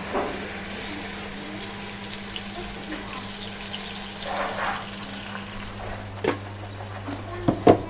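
Blended chili and garlic paste poured into hot oil in a wok, sizzling and spattering; the sizzle starts suddenly and slowly eases off. A few sharp knocks near the end, over a steady low hum.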